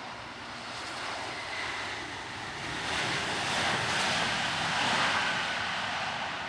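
Airbus A350-941 jet airliner's Rolls-Royce Trent XWB turbofans during the rollout just after touchdown: a steady rushing jet roar with a faint whine, swelling about three seconds in and loudest about five seconds in as the aircraft passes.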